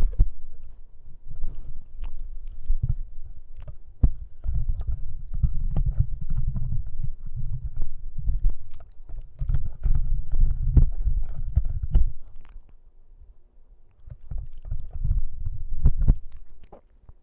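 Boston Terrier puppy chewing and mouthing a microphone in its shock mount: a heavy low rumble of handling noise with sharp clicks of teeth on the mount, coming in bouts, with a lull of a second or two about thirteen seconds in.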